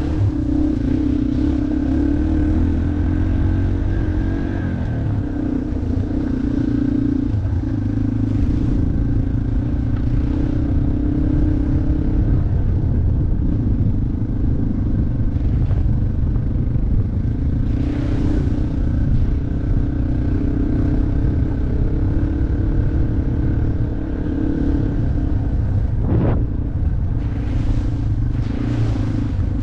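Off-road motorcycle engine running steadily while being ridden, the engine note holding fairly even with small rises and dips, over a low rumble and a few sharp knocks.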